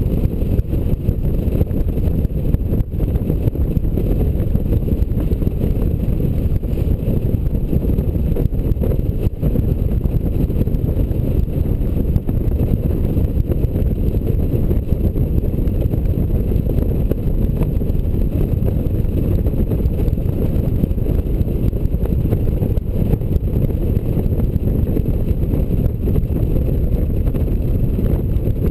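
Honda Gold Wing motorcycle riding at a steady cruising speed: a steady low rush of wind on the bike-mounted camera's microphone, with engine and road noise underneath and no sudden events.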